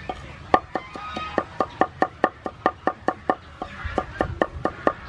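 Cleaver chopping garlic on a wooden cutting board: a steady, rapid run of knocks, about five a second, starting about half a second in.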